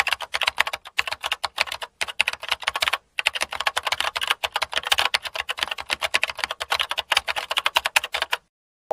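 Rapid computer-keyboard typing sound effect, keystrokes clicking many times a second with a brief pause about three seconds in, stopping just before the end.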